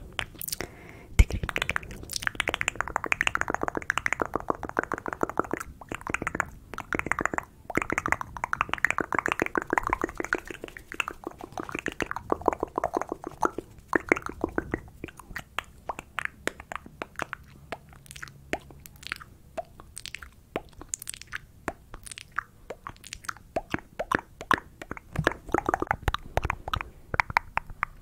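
ASMR mouth sounds very close to a microphone: rapid wet clicks, pops and smacks of tongue and lips, dense through roughly the first half and sparser after.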